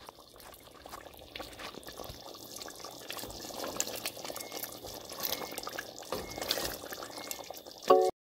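Wooden spatula stirring thick curry goat gravy simmering in a pressure pot: wet squelching and bubbling with small scrapes against the pot, growing busier. A sharp knock near the end.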